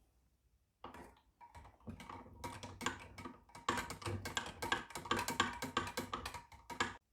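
A spoon stirring a glass of orange squash with water and ice cubes: rapid clinking of spoon and ice against the glass with a light ringing, growing louder after a few seconds.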